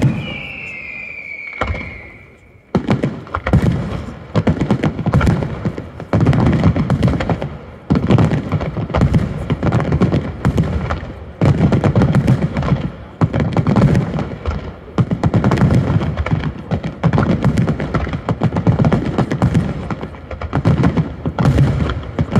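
Daytime fireworks display: a falling whistle near the start, then from about three seconds in a dense, continuous barrage of aerial shell bursts and crackling bangs, coming in waves.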